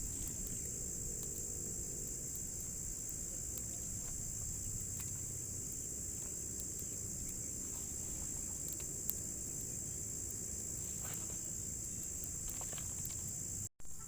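Steady high-pitched chorus of crickets and other insects, over a low rumbling background noise. The sound cuts out briefly near the end.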